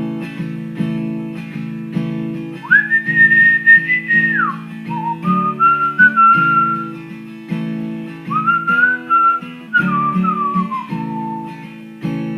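Strummed acoustic guitar with a whistled melody over it. The whistle comes in a few seconds in with a long high held note that drops away, followed by lower wavering phrases that fade out near the end.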